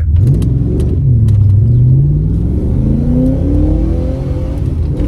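Holden 5-litre 304 V8 under full-throttle acceleration from a standstill in a 0–100 km/h run. The engine pitch dips about a second in, then climbs steadily for over three seconds and falls sharply near the end at an upshift of the T5 manual gearbox, before starting to rise again.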